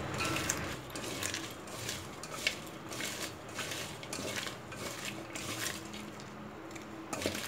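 Hand rubbing and squeezing salted ivy gourd pieces in a metal bowl: the pieces rustle and knock against the bowl in a run of light scrapes and clinks, with a sharper clink about two and a half seconds in. The salt is being worked in to take away the gourd's sticky sap.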